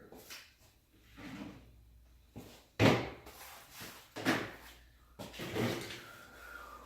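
Knocks and clatters of hands working on the ski bike's rear while fitting a bungee retention strap: three main knocks, the loudest about three seconds in, with quieter handling noises between.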